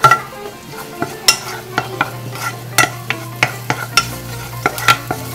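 Wooden spatula stirring minced garlic and oregano frying in oil in an enamel pot, scraping and knocking against the pot's sides and bottom about twice a second, over a light sizzle.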